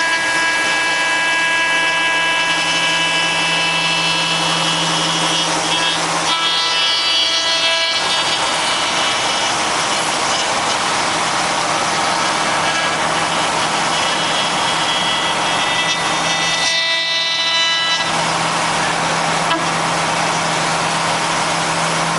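Five-axis CNC router spindle running at speed with a steady high whine, its bit cutting into wood with a hiss; the whine weakens twice, briefly, about six and seventeen seconds in.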